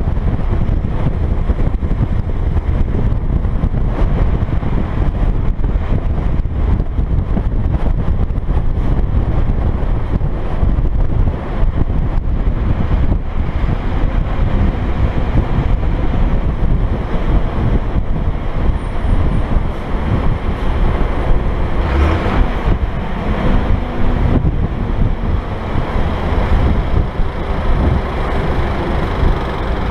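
Wind buffeting an exposed microphone on a moving dump truck, over the steady low drone of the truck's engine and tyres on the road.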